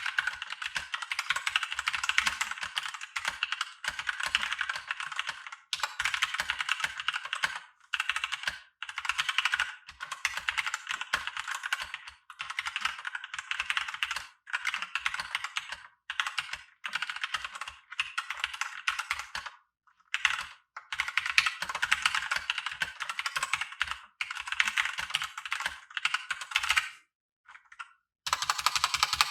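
Fast typing on a Royal Kludge RK918 full-size mechanical keyboard fitted with Royal Kludge's own linear red switches: dense runs of key clacks broken by short pauses every couple of seconds, with a longer pause near the end.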